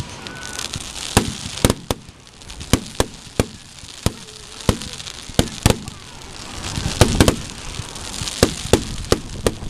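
Aerial fireworks bursting overhead in a rapid, irregular series of sharp bangs, with a high fizzing hiss between them.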